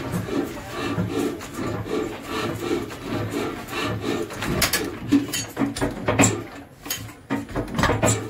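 Old Ruston diesel engine being cranked over by hand to start it, with a quick rhythmic pulsing as the flywheel is swung round. From about halfway through come several sharp metallic knocks and clanks.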